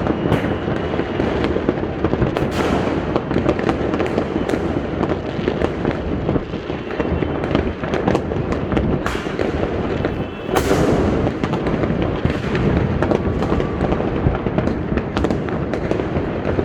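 Many fireworks going off at once from rooftops all around: a dense, unbroken crackle of pops and bangs, with a bigger bang about three seconds in and another about ten and a half seconds in.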